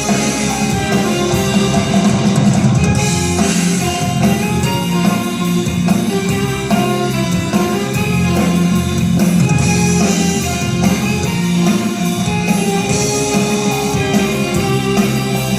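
Music with guitar and drums and a steady beat.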